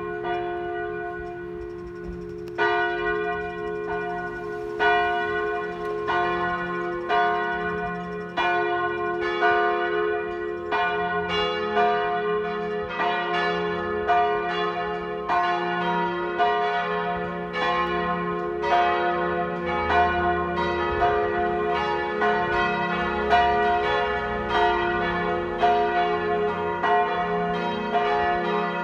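Full peal of church bells, all the bells swinging together in an irregular, overlapping pattern, the strokes coming closer together after the first few seconds over a continuous ringing hum. It is the plenum rung to call the faithful to High Mass.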